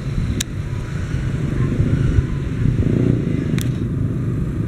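Motorcycle engine running at low speed under a steady, uneven rumble of wind on the microphone.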